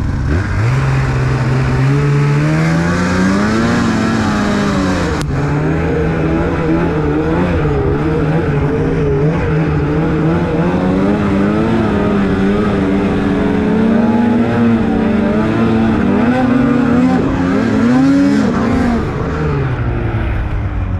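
Snowmobile engine pulling hard under load while towing. It revs up over the first few seconds, runs at high revs with the pitch wavering up and down, and eases off near the end. A single sharp click comes about five seconds in.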